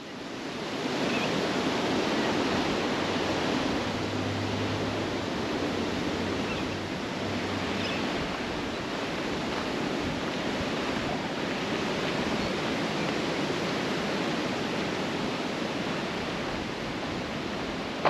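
Steady rushing of a strong wind, fading in over the first second.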